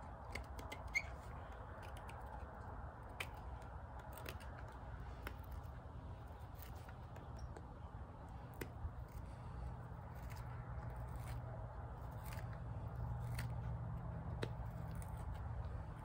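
Small scoop blade of a Schrade Old Timer carving knife cutting into a stick of wood: irregular short scrapes and clicks as it digs out a small hole, over a low steady hum.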